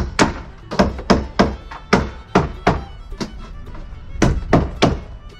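Hammer driving nails into the wooden frame of a pop-up camper: about a dozen sharp blows in quick runs with short pauses between. Faint background music underneath.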